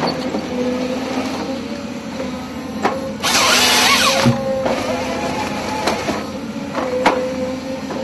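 Excavator engine and hydraulics running with a steady hum while the Log Max 7000 harvester head feeds a pine stem; about three seconds in, the head's chain saw cuts through the trunk for about a second and a half. Sharp cracks just before the cut and about seven seconds in.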